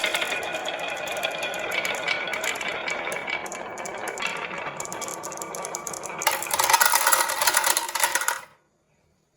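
Many marbles rolling and clattering down a HABA marble run, a dense rattle of small clicks with a ringing tone. It grows louder about six seconds in and stops abruptly about eight and a half seconds in.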